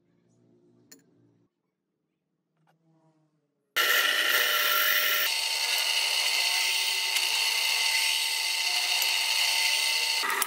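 Nearly quiet for the first few seconds, then a power tool starts suddenly and runs loudly and steadily with a shrill whine, its note shifting slightly about a second and a half in, before cutting off abruptly at the end.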